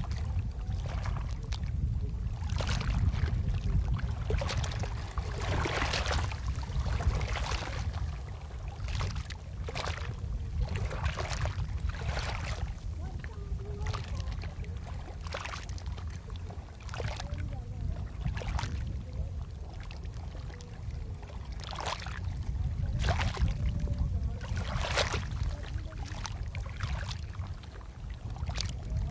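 Sea water splashing and lapping in irregular bursts, over a heavy low rumble.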